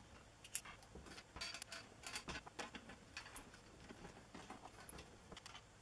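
Faint, irregular small clicks and scrapes of a screwdriver turning a screw into the plastic case of an IBM Model F keyboard while its back cover is fastened.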